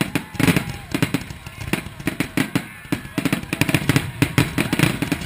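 Aerial fireworks going off in a rapid volley of shell bursts and crackles, many bangs a second, thickest in the second half.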